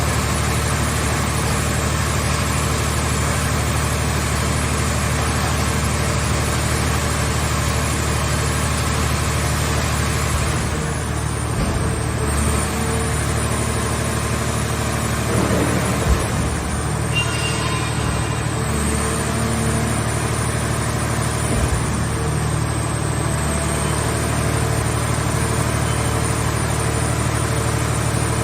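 Hydraulic car-body baler's power unit running with a steady drone, with a few dull thumps along the way.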